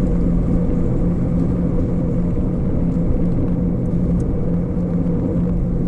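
2018 Chevrolet Camaro's 3.6-litre V6 and exhaust running at a steady cruise, a constant drone with road and wind noise and no revving.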